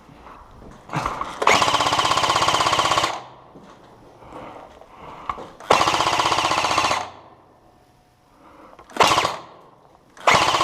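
Airsoft rifle firing on full auto: a long burst of rapid, evenly spaced shots, a second burst of over a second, then two short bursts near the end.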